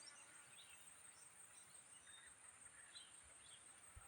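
Faint outdoor ambience: scattered short bird chirps over a steady high-pitched insect drone.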